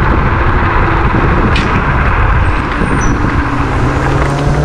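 Varla Eagle One dual-motor electric scooter riding along a road at speed: steady wind and road rush. A low steady hum comes in about three and a half seconds in.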